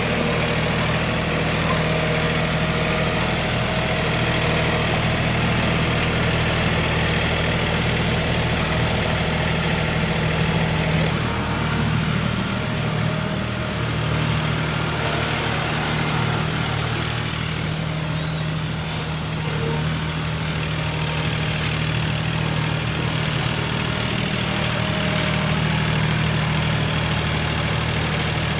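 Tractor engine running steadily, its note changing about eleven seconds in.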